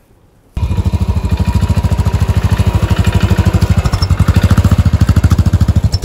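Motorcycle engine running steadily with a rapid, even pulse. It cuts in suddenly about half a second in.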